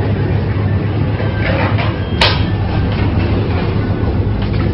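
Self-service restaurant room noise: a steady low hum with faint voices in the background, and one sharp click about two seconds in.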